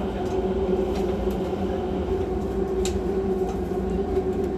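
Taoyuan Airport MRT train running, heard at the gangway between two cars: a steady low rumble with a steady hum over it. A few light clicks and rattles, one sharper about three seconds in.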